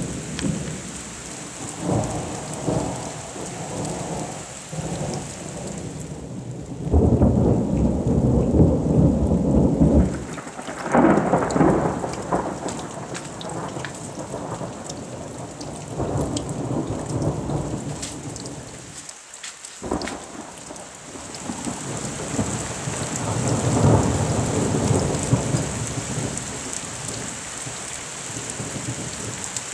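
Thunder rolling in long, low rumbles that swell and fade several times, loudest about seven to twelve seconds in and again around twenty-four seconds, over steady rain.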